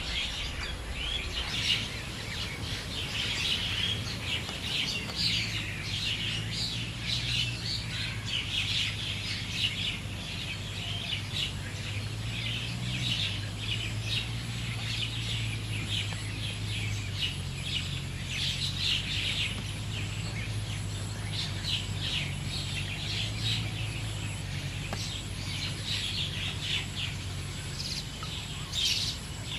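Many small birds chirping and calling continuously, dense quick chirps, over a steady low hum.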